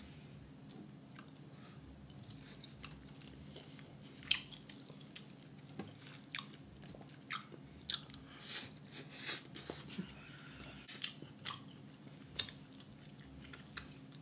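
A person chewing rotisserie chicken, with scattered wet mouth clicks and smacks, most of them in a cluster about eight to ten seconds in. A faint steady low hum runs underneath.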